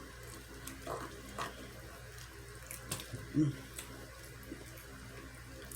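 A person chewing and smacking while eating: faint wet mouth clicks and smacks, with two short hums, over a steady low hum.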